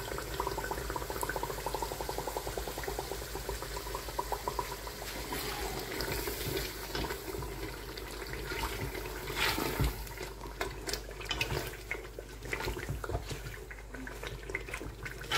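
Thick spinach-and-meat gravy simmering in an aluminium pot while a slotted spatula stirs it, with a steady bubbling and scattered small pops and scrapes that come more often in the second half.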